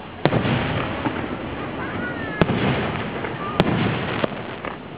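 Aerial firework shells bursting overhead: three sharp bangs, about a quarter second in, just after two seconds and at about three and a half seconds, with a smaller one near the end, and a continuous rumble of the display between them.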